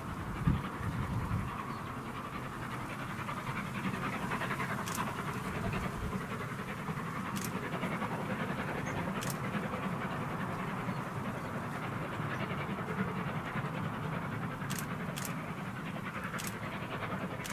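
Distant exhaust of an LMS Jubilee Class three-cylinder steam locomotive working hard up a gradient, a steady rough chuffing. Wind buffets the microphone, with a few sharp clicks.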